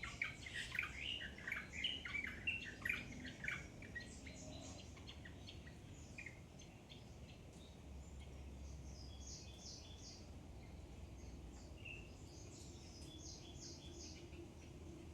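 Small birds chirping: a dense run of quick, loud chirps in the first four seconds, then fainter, higher chirps scattered through the rest.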